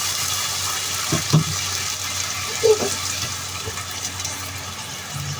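Water added to a hot pan of stir-fried carrot and baby corn, hissing and bubbling and slowly dying down, with a few light knocks about a second in and again near three seconds.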